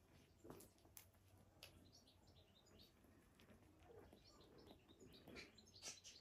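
Faint, short, high chirps and squeaks from kittens and a baby coati suckling on a cat, in a cluster about two seconds in and again from about four seconds on.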